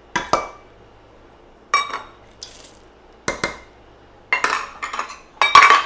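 A stainless steel measuring cup knocking against a stainless steel mixing bowl as chocolate chips are shaken out: about five ringing metal clanks, the loudest near the end.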